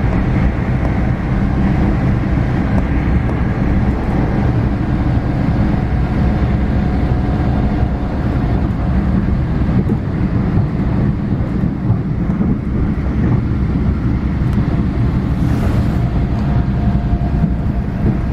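Steady low vehicle rumble with wind buffeting the microphone, and a faint steady whine that comes and goes.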